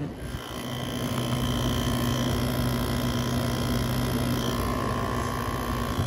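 Air conditioner running steadily: a constant fan rush with a low hum and a thin, high, steady whine above it.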